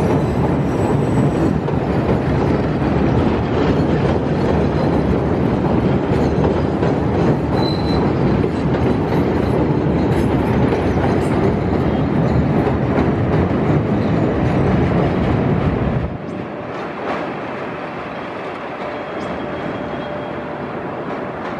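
A CTA 5000-series elevated train running close by on steel track: loud steady wheel-on-rail noise with clicking over the joints and a brief high wheel squeal. About sixteen seconds in it drops to a quieter rumble of a train approaching a station further off.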